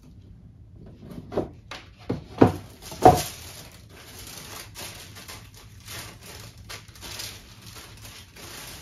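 A boxed pair of shoes being unpacked by hand: several sharp knocks of the box and lid in the first three seconds, then steady crinkly rustling of the wrapping and cloth dust bags.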